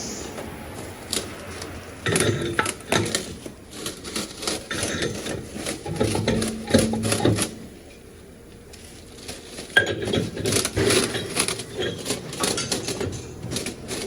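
Metal objects clinking and clattering irregularly, with a short lull about eight seconds in.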